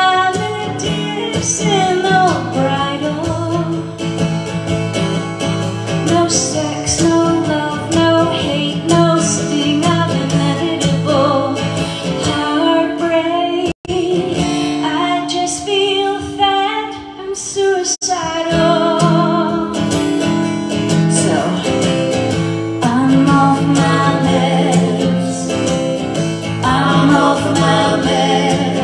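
Live acoustic set: a woman singing with vibrato over strummed acoustic guitar, joined by a second guitar. The sound cuts out for an instant twice near the middle.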